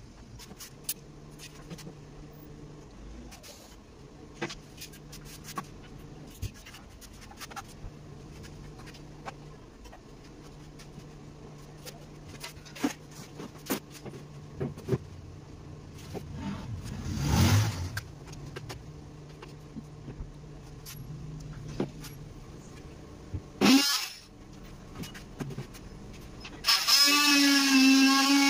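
Scattered knocks and clicks of plywood and hand tools being handled, with a faint low hum and two louder thumps. About a second before the end a corded electric power tool starts up and runs with a loud whine.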